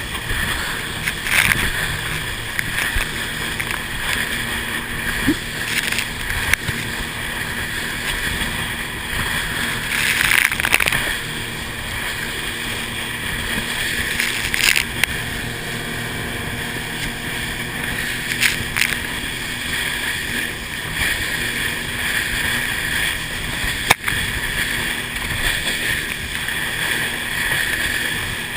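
Motorboat running through rough, choppy inlet water, with a steady rush of engine and water noise that swells louder now and then.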